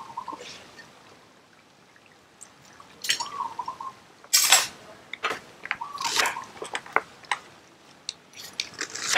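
Knife cutting through a peeled onion on a wooden cutting board: a series of short crunchy cuts and peel rustles, the loudest crunch about four seconds in. A short chirp recurs about every three seconds in the background.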